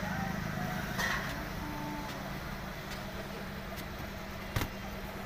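Steady low hum of an engine running, with a soft knock about a second in and a sharper, louder knock about four and a half seconds in.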